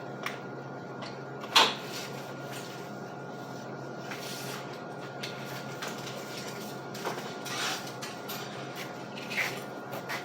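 Scattered knocks and clinks of steel being handled in a fabrication shop, one sharper knock about a second and a half in, over a steady machine hum with several held tones.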